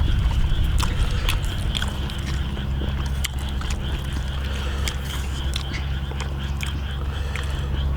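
People chewing food, with scattered short clicks of eating, over a steady low hum.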